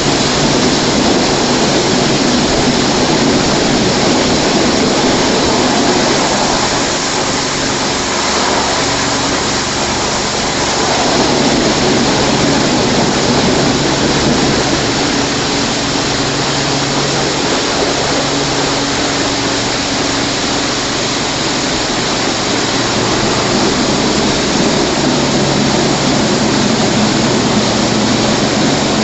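WashTec SoftCare 2 Pro rollover car wash gantry spraying water over a foam-covered car as it moves along it: a steady, loud hiss of spray over the low hum of its machinery.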